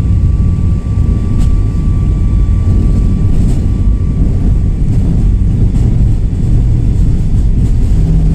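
Jet airliner taking off: the engines and rushing air make a loud, steady, deep rumble, heard from inside the cabin. A faint steady whine runs under it and fades out about five seconds in.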